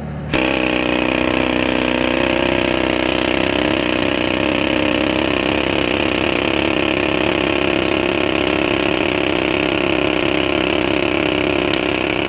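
Pneumatic rock drill starting up suddenly a moment in and then running steadily, hammering and hissing as it bores into a boulder. It plays over a lower engine-like drone that was already running.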